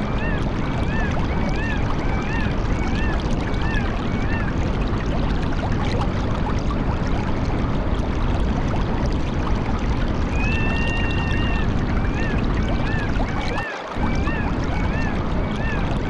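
Steady rush of flowing water, with a bird calling over it twice. Each call is one held note about a second long, then a string of short rising-and-falling chirps, about two or three a second.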